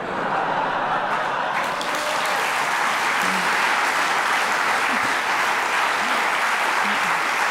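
Audience applauding: a steady wash of clapping that starts at once and holds level.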